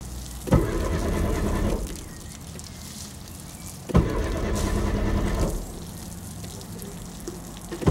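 A car's starter motor cranking the engine twice, each try opening with a click from the key and lasting about a second and a half before dropping off, without the engine catching. A third try begins at the very end. This is typical of a car whose fuel pump has been cut off by a kill switch.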